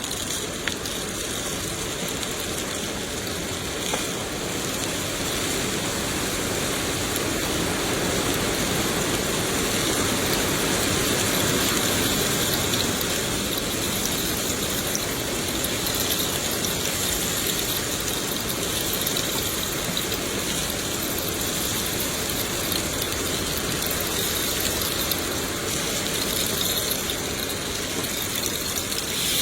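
Steady rainfall, a continuous even hiss without a break.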